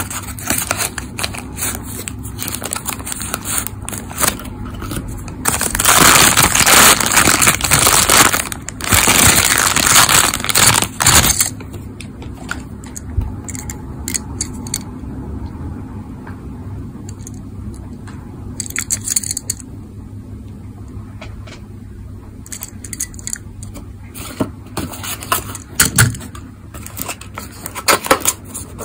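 Close-up handling of a toy car's cardboard packaging: the box and its insert rustle and crinkle loudly for about five seconds, after which come quieter scrapes and small clicks and taps as the die-cast Tomica car is handled and set down on a cutting mat.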